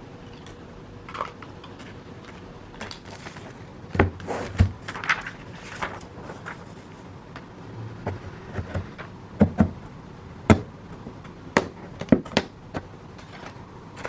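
Irregular knocks and clicks of objects being handled indoors, a dozen or so, loudest about a third of the way in and again in the second half, over a faint steady hum.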